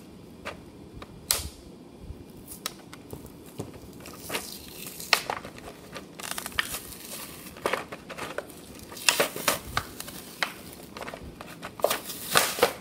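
Plastic toy capsules and a cardboard tray being handled: irregular crinkling, crackling and clicking as mini toy trains are pulled out of their packaging, busier in the second half.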